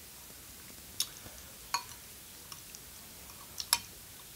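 Eating noodles with a metal fork from a glass bowl: quiet chewing broken by a handful of sharp clicks, the loudest pair near the end.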